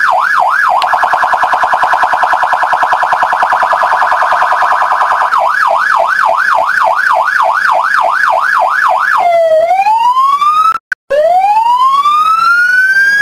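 Electronic police siren, loud and close. It switches from a fast yelp to a very rapid warble, back to the yelp, and then to a slow rising wail for the last few seconds. The sound cuts out for a moment shortly before the end.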